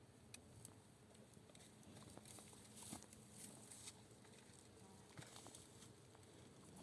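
Near silence, with faint, scattered soft rustles and small clicks that come a little thicker for a couple of seconds in the middle.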